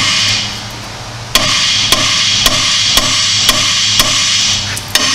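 Hammer striking a Jeep Grand Cherokee's aluminum steering knuckle to pop the lower ball joint stud loose. There is one blow at the start, a pause of about a second, then a string of about seven sharp, ringing metal blows, roughly two a second.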